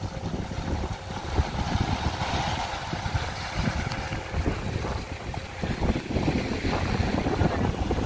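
Wind buffeting the microphone over small sea waves washing onto a sandy shore.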